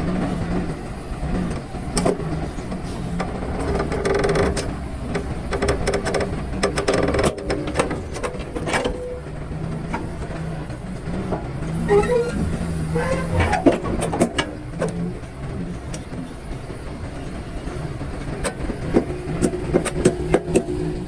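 Large excavator's diesel engine running steadily under load, with repeated sharp knocks and clatter of blasted rock against the bucket and trench.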